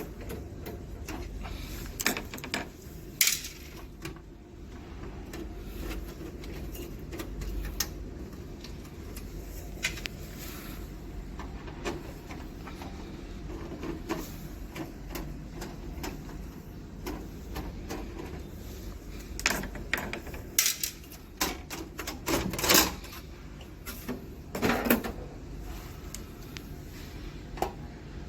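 Scattered clicks and knocks of tools and parts being handled while the CPU board and M.2 SSD are taken out of a Konica Minolta bizhub 300i copier, over a steady low hum. The sharpest cluster of knocks comes about two-thirds of the way in.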